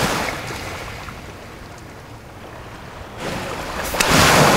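Sea waves washing onto a beach: one surge fades away over the first couple of seconds, and a new wave builds and breaks near the end.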